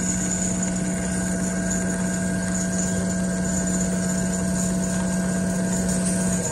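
Richpeace automatic furniture sewing machine running as it stitches a large padded headboard panel: a steady mechanical hum with a high whine above it.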